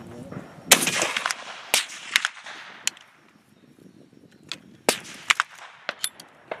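A single shot from a .577 Snider Mk III rifle about a second in, ringing on briefly. It is followed by a run of sharp clicks as the rifle's breech is worked after firing.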